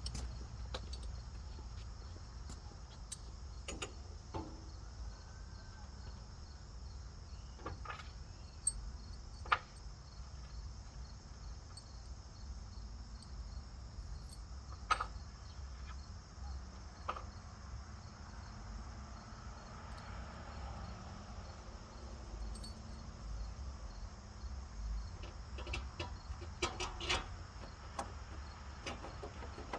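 Steady high-pitched chirring over a low rumble, broken by scattered sharp clicks and knocks, with a few louder ones and a cluster of them near the end.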